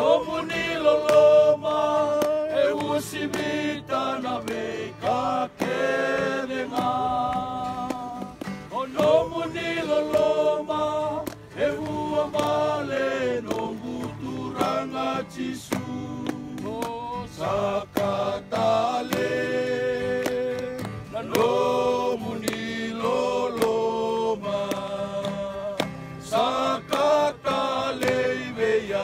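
A group of voices singing a hymn in Fijian, sustained sung lines with short breaks between phrases, over a steady strummed guitar.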